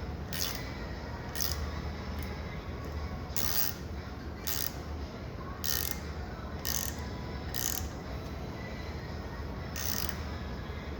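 Ratcheting tap wrench clicking as its handle is swung back between strokes while turning a tap into a pre-drilled hole in hardened steel; sharp clicks at uneven spacing, roughly one a second.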